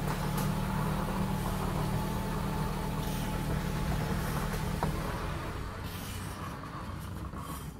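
A motor running steadily, its hum easing off about five seconds in.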